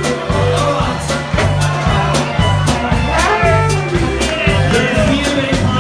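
Live band music with a quick, steady beat and a bass line that bounces from note to note.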